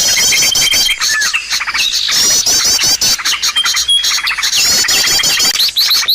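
Dense chorus of small birds chirping and calling rapidly, with fast repeating trills and short high whistles overlapping without a break; a bird-lure call recording for attracting many species.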